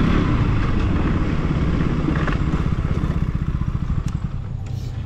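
Motorcycle engine running at low revs with a steady, rapid pulsing. It quietens about four seconds in.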